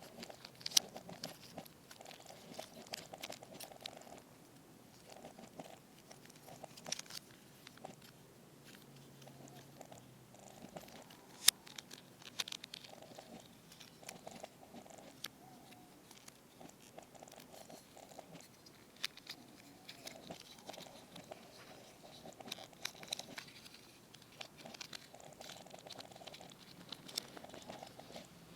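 Small plastic Transformers action figure being handled, with faint rubbing and scraping and scattered sharp plastic clicks; the loudest click comes about eleven seconds in.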